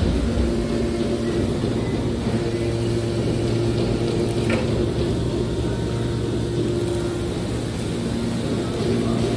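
Scrap metal baler machine running, a steady, even mechanical hum over a noisy bed.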